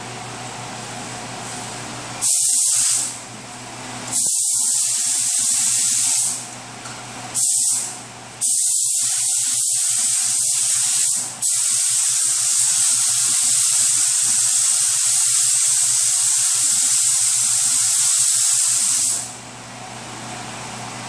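Paint spray gun hissing in bursts as silver metallic basecoat is sprayed on as a blend coat. There are several short passes, then a long one of about eight seconds that stops near the end.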